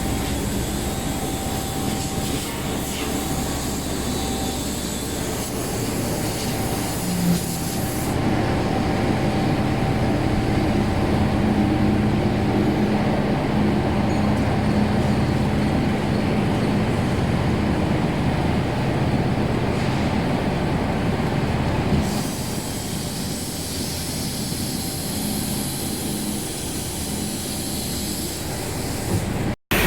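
Foundry sand molding machine running: a continuous mechanical rumble with a steady hum, the sound changing abruptly about 8 seconds in and again about 22 seconds in, and a brief dropout near the end.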